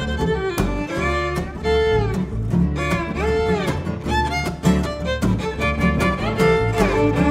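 Live acoustic string-band music: a fiddle carries a bluesy melody with sliding, bending notes over an upright bass and a strummed guitar.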